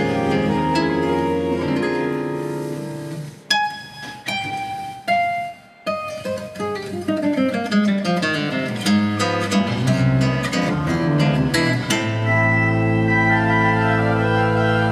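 Classical guitar and church pipe organ playing together. Held chords give way to a few isolated plucked guitar notes, then fast guitar runs, and about twelve seconds in the organ enters with a full sustained chord over a low pedal note.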